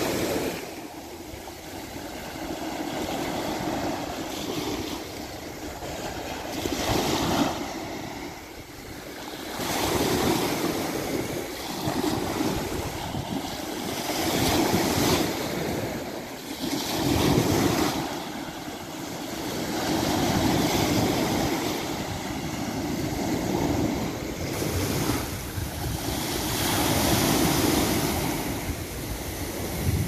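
Small sea waves breaking and washing up a sandy beach. The surf swells and fades every two to three seconds.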